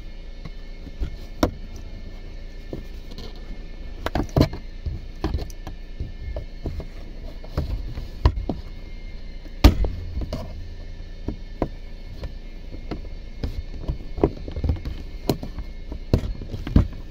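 Scattered clicks and knocks of a flat screwdriver prying and tapping along the plastic top trim of a Chevrolet Traverse dashboard, the trim shifting against the dash, with the loudest knock about halfway through. A steady low hum runs underneath.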